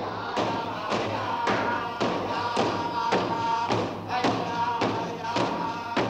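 Eskimo walrus-hide frame drums beaten in unison, a sharp strike about twice a second, under group singing holding a steady chanted note.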